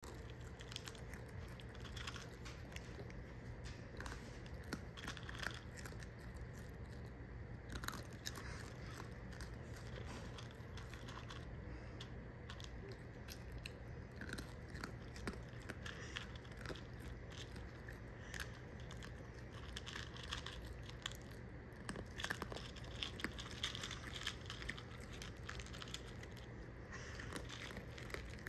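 Young raccoon chewing small, dry, crunchy snack pieces: a rapid, irregular scatter of faint crunches over a steady low hum.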